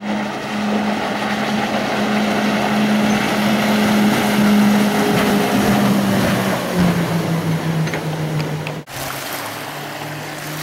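Boat engine running under way with a steady hum over wind and water rush; the engine note drops to a lower pitch about two-thirds of the way through, and the sound cuts out for an instant shortly before the end.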